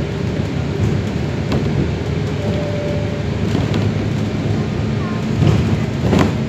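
Interior running noise of an Alexander Dennis Enviro400 double-decker bus on the move: a steady low rumble of engine and road noise, with a few sharp rattles or knocks from the bodywork.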